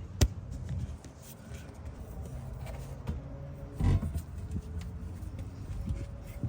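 Knocks from handling and fitting an exhaust section: a sharp knock near the start and a louder thump about four seconds in, over a low rumble.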